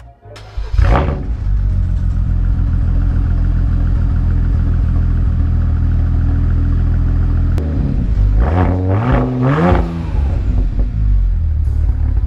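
Car engine running loudly from about a second in, then revving up in a few quick rising sweeps between about eight and ten seconds in as the car accelerates.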